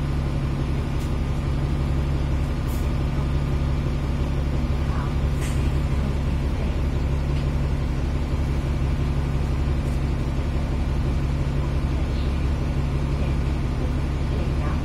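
Engine of a Euro 5 Alexander Dennis Enviro500 MMC double-decker bus running steadily, a constant low hum with no revving.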